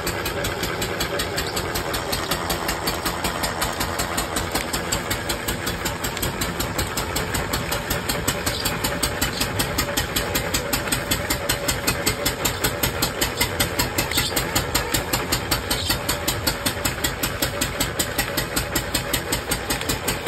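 Motor-driven noodle-extruding machine running steadily with a fast, even knocking pulse that grows more distinct partway through as dough is fed into its hopper.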